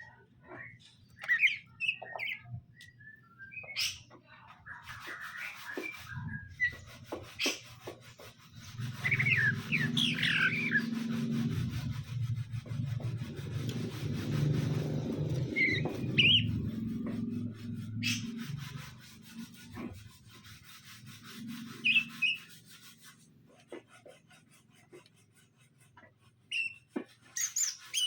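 Green leafbirds (cucak ijo) giving short chirps and quick whistled notes on and off. A low rumble swells up for several seconds in the middle and then fades.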